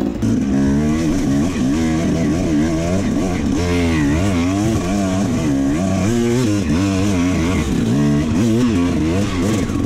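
Enduro dirt bike engines revving, their pitch swinging up and down about once or twice a second as the throttle is opened and closed.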